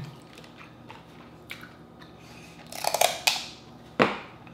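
King crab leg shell being cracked and snapped apart by hand: faint small crackles, a quick cluster of loud sharp cracks about three seconds in, then one sharp crack a second later.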